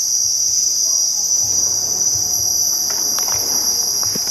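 A steady, high-pitched chorus of trilling insects, with a few faint ticks in the second half.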